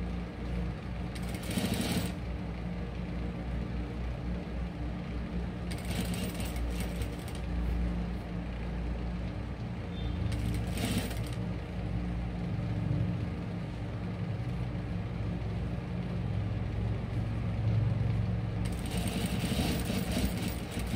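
Juki industrial sewing machine running steadily, its motor humming and needle stitching rapidly, as a collar is sewn onto a garment's neckline. A few brief hissing sounds lie over it, the longest near the end.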